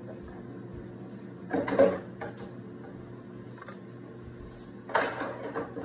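Two bursts of kitchen clatter, about a second and a half in and again about five seconds in, as things are put into the sink, over a steady low hum.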